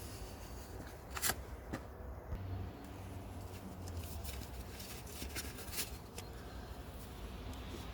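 Mercedes-Benz OM651 four-cylinder diesel idling with a steady low rumble, broken by irregular short, sharp chirps, the strongest about a second in. This is the chirping at idle that can come from a source affecting OM651s with the two-stage turbo.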